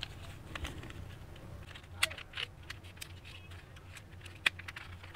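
Small plastic clicks and light scraping as a pocket Wi-Fi router's circuit board and battery are handled and pressed back into its plastic case, with a sharper click about two seconds in and another near the end, over a faint low hum.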